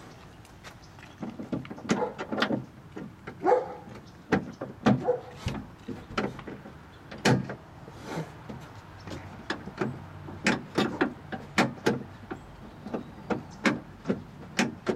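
Irregular metallic clicks, knocks and short scrapes of a replacement door lock cylinder being worked by hand into a car door and onto the lock's inner linkage tab, with a couple of brief squeaks a few seconds in.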